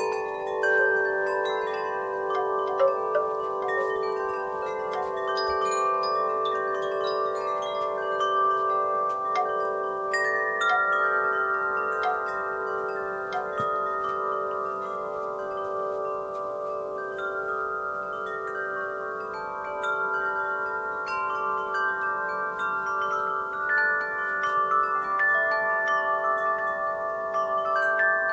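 Wind chimes stirred by a breeze, ringing continuously: many overlapping tones, struck again and again, each ringing on long after it is hit.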